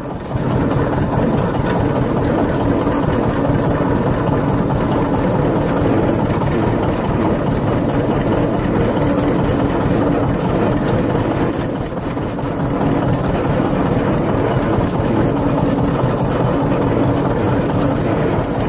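Tractor engine running steadily while towing a loaded manure spreader.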